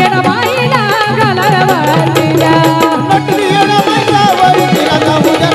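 Live Marathi devotional folk song: hand drums keep a steady beat under a wavering melody line, with no words sung in this stretch.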